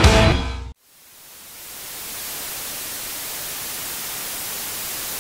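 A rock song cuts off under a second in. After a brief silence, a steady static hiss, strongest in the treble, builds over about a second and then holds evenly.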